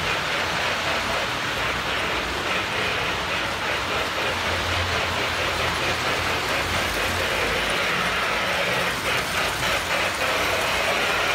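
Lionel 779 Berkshire O-gauge model steam locomotive and its freight cars running on three-rail track: a steady mechanical rattle and rumble of motor and wheels. The train gets louder about nine seconds in as it passes close, with quick clicking over the track.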